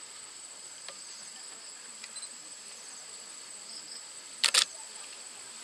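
Steady high-pitched insect chorus. About four and a half seconds in, a brief loud burst of noise comes in two quick pulses.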